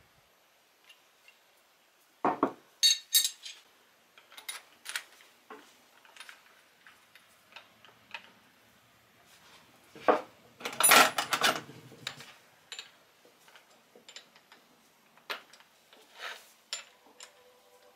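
Metal tools and small steel parts handled on a wooden workbench: scattered clinks and knocks, with a louder run of rapid clattering clicks about ten to twelve seconds in.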